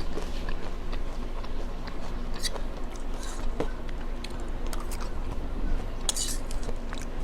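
Close-miked eating sounds for ASMR: chewing with scattered sharp clicks and crackles, a couple of them louder about two and a half and six seconds in.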